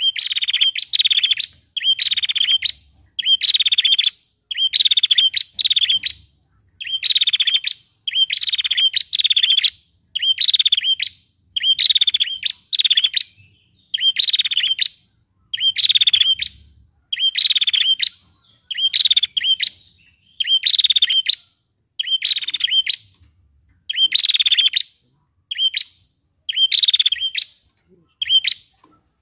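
Female prenjak calling in short, rapid, high-pitched trills, repeated about once a second in a steady series.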